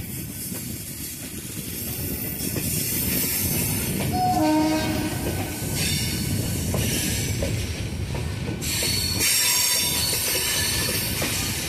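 Passenger train running along the track, heard from inside the coach at an open door or window: a steady rumble of wheels on rail. On the curve this comes with high-pitched squealing from the wheels, clearest near the end.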